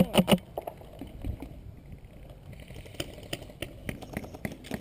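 Sharp clicks and taps: several loud ones close together at the start, then a few single ones spread out over a faint background.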